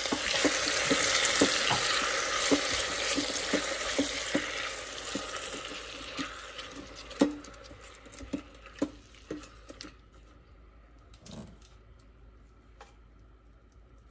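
Chopped tomatoes, shallots and garlic sizzling in hot oil in an Instant Pot's stainless steel inner pot on sauté, while a silicone spatula stirs them, knocking against the pot about twice a second. The sizzle fades away by about ten seconds in, leaving a few scattered knocks.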